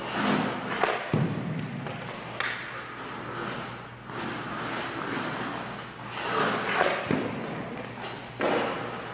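Hockey pucks thudding and clacking off a goaltender's leg pads and stick several times, with skate blades scraping the ice between the hits.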